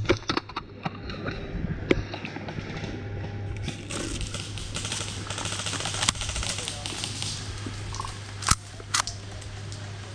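Scattered sharp cracks of airsoft gunfire, the loudest two about half a second apart near the end, over rustling and a steady low hum.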